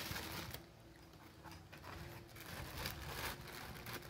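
Plastic bags around car speakers crinkling and rustling as they are handled and pressed into a foam-lined box, in several short bursts.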